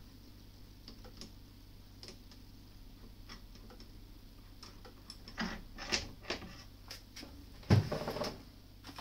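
Tool change on a benchtop milling machine: faint, slow, regular ticking, then a run of metal knocks and clatter in the second half. The loudest is a sharp knock about three-quarters of the way through.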